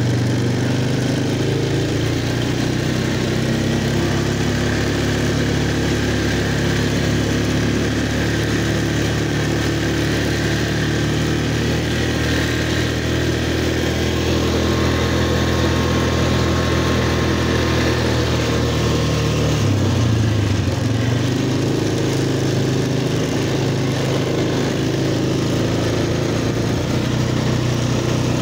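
Four-wheeler (ATV) engine running steadily while riding along, its pitch dipping briefly and climbing back about two-thirds of the way through.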